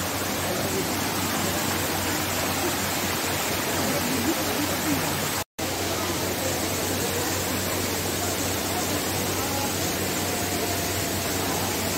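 Steady rush of flowing water at natural hot spring pools, with faint voices in the background. The sound drops out for an instant about five and a half seconds in.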